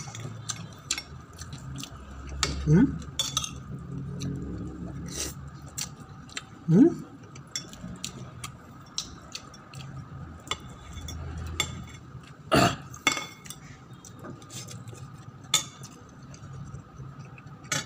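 Metal fork and spoon clinking and scraping against a ceramic plate while eating, in scattered irregular clicks, the loudest about two-thirds of the way through.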